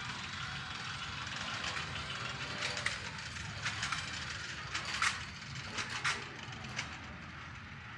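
A small funfair family roller coaster's caterpillar train running on its steel track: a steady rumble, with a string of sharp clacks and rattles from about three to seven seconds in. The rumble then eases off.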